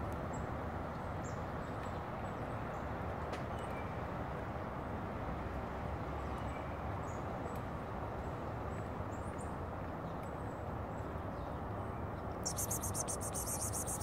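Steady outdoor background noise with faint, scattered high bird chirps. Near the end, a burst of rapid, high-pitched crackling lasts about two seconds.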